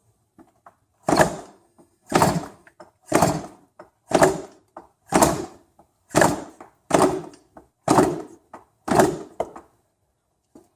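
Yamaha Banshee 350's twin-cylinder two-stroke engine being kick-started nine times, about one kick a second, each kick turning the engine over without it firing. The owner blames the failure on stale fuel left in the carburettor bowl after six months of storage.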